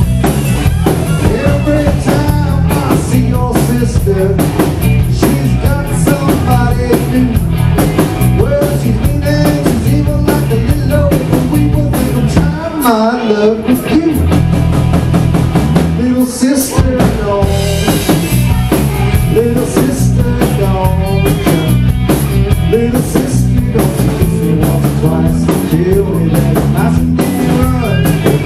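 Live rock band playing loudly: electric guitar, electric bass and drum kit. Twice near the middle the bass and kick drum drop out for a second or so while the guitar carries on.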